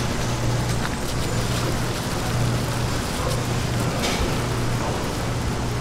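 Steady street-market background din with a constant low hum underneath and a few faint clicks.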